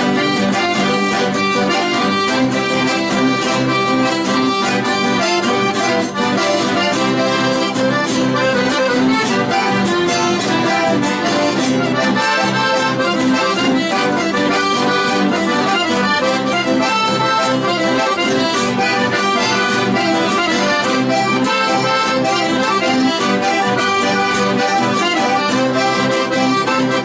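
Accordion playing a lively chamamé, the Argentine folk dance music, instrumental with no singing.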